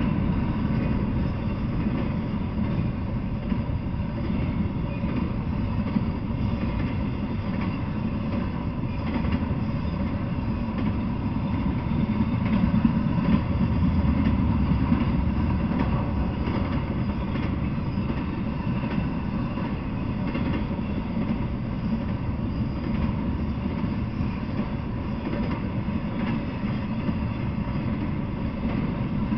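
Intermodal freight train's flatcars rolling past, a steady rumble of steel wheels on rail that swells a little about halfway through.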